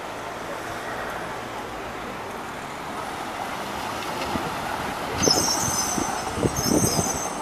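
City traffic hum, then about five seconds in an articulated tram's steel wheels squeal high-pitched on the curve and knock several times over the rail crossings of a tram junction.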